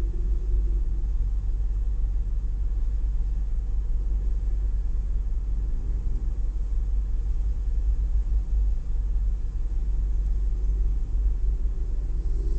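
Low, steady rumble from the supercharged BMW E46 M3's straight-six idling while stationary, mixed with wind buffeting the microphone.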